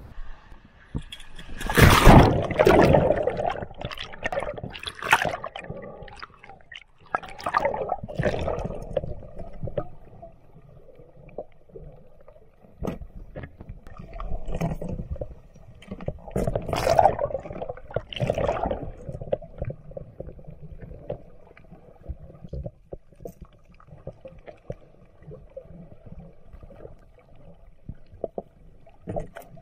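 A loud splash about two seconds in, then muffled underwater sound from a camera below the surface: repeated bursts of gurgling and bubbling water as a diver moves along a shallow reef.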